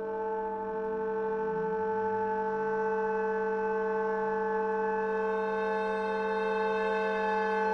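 Chamber ensemble of winds and bowed strings holding one long sustained chord that swells slowly louder, with a low voice wavering briefly about a second in.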